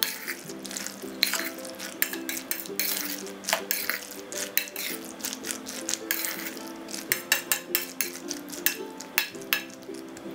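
A spoon stirring mayonnaise-coated macaroni salad in a stainless steel bowl, scraping and clicking against the metal sides many times at an uneven pace. Soft background music with held notes plays underneath.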